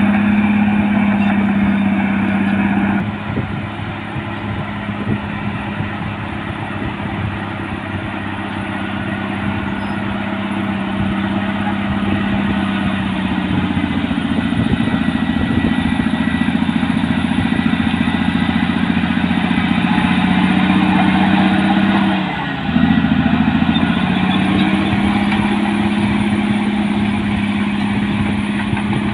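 Caterpillar D6R bulldozer's diesel engine running as it pushes sand. Its pitch drops about three seconds in, climbs back up midway, and dips briefly before recovering near the end.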